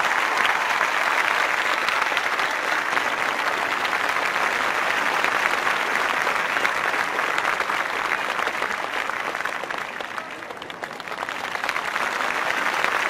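Crowd applauding: a dense, steady patter of many hands clapping that eases a little about ten seconds in and then swells again.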